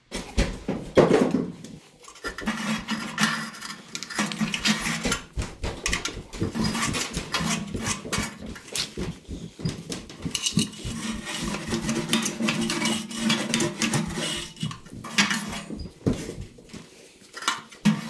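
Bristle brush scrubbing and scraping inside the burner compartment of a gas water heater: a dense run of rapid rasping, scraping and knocking against the metal combustion chamber as the burner area is cleaned out.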